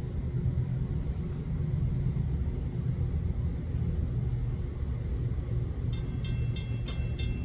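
Steady low rumble of an approaching train. About six seconds in, a railroad crossing bell starts ringing, about four strikes a second.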